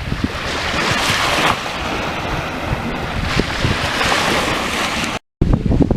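Wind buffeting the microphone over waves washing on the shore, the wash swelling twice. The sound drops out completely for a moment about five seconds in, then the wind noise resumes.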